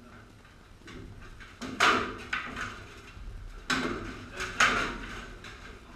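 Weapons striking steel armour and shields in armoured-combat sparring: a series of sharp metal clanks with ringing, the loudest about two seconds in and twice more in the second half.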